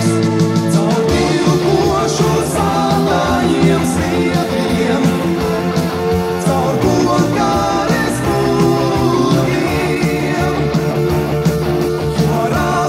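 1980s Latvian rock song played back from a cassette that was dubbed from an original reel-to-reel tape recording: a rock band with electric guitar, bass and drums, playing steadily.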